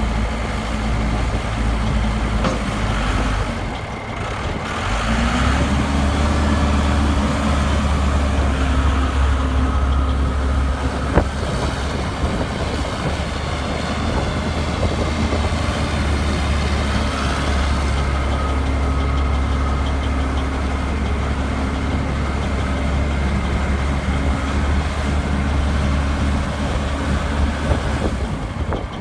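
Case backhoe's diesel engine running steadily. It dips briefly about four seconds in, then picks up to a slightly higher speed and holds it.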